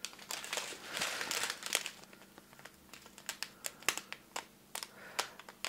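Small clear plastic bags of diamond-painting rhinestones crinkling as fingers handle and pinch them. A denser rustle comes in the first two seconds, then scattered sharp crackles.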